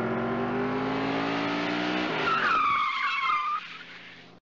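Car engine revving with its pitch slowly rising, then tyres screeching for about a second before the sound fades away.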